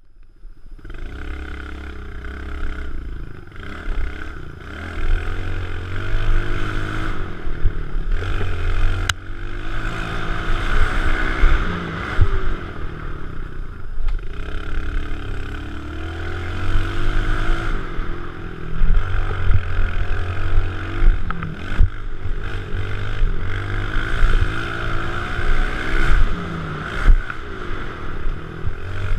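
Kawasaki KLX110 pit bike's four-stroke single-cylinder engine revving as it is ridden round a dirt track, its pitch rising and falling with the throttle over and over. There is a sharp click about nine seconds in.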